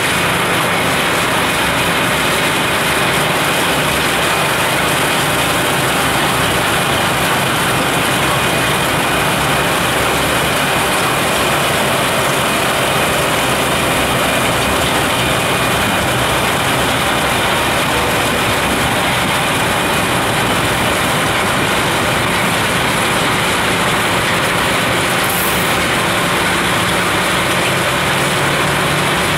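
Rhaetian Railway rotary snow blower Xrotmt 95403 at work: a steady loud engine and rotor noise as it clears the track and throws snow, with a faint high whine running through it.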